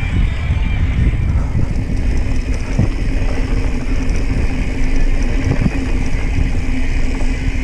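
Mountain bike descending a dirt trail: a steady rumble of wind and tyres on the bike-mounted camera, with a few knocks from the bike over bumps.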